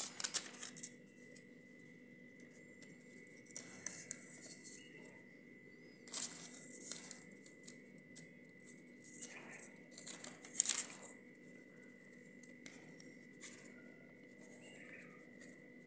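Thin paper sheets of a silver-leaf (varq) booklet rustling and crinkling in short bursts as they are pressed onto the barfi and peeled away, the loudest rustle about two-thirds through. A faint steady high whine sits underneath.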